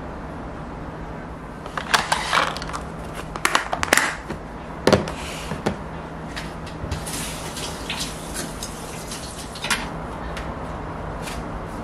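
Plastic lunch-box lids being fitted and their locking clip flaps snapped shut: a quick series of clicks and knocks, the loudest a little after the middle, with one more click near the end. A steady low hum runs underneath.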